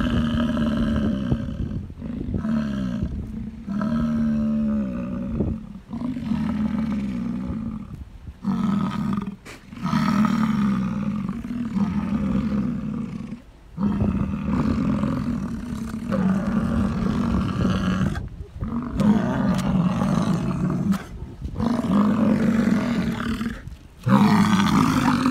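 Bull American bison bellowing in the rut: a run of about ten deep, guttural roars, each lasting one to three seconds with short gaps between. These are the rutting calls a bull makes to attract cows.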